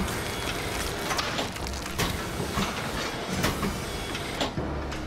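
Mechanical mosasaur jaw model working a hunk of ballistics gel: a continuous mechanical clatter over a low hum, with sharp clacks about every half second to one second.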